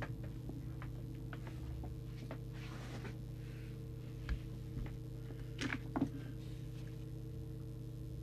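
Steady low electrical hum from the workbench, with a few faint clicks and small knocks from handling equipment.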